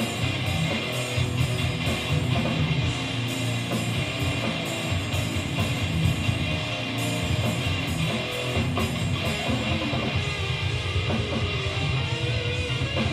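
Live heavy metal band playing, electric guitars over a drum kit.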